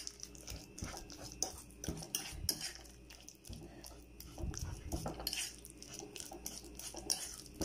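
Metal fork mashing ripe bananas in a plastic bowl: an uneven run of quick clicks, taps and scrapes as the tines hit the bottom and sides of the bowl.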